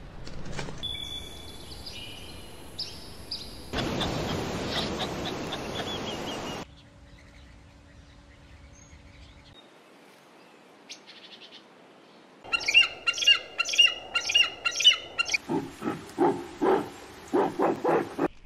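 Bird chirps and calls in several short, abruptly joined stretches of outdoor sound, with a quiet stretch in the middle; the loudest part is a run of rapid repeated calls followed by a string of stronger calls near the end.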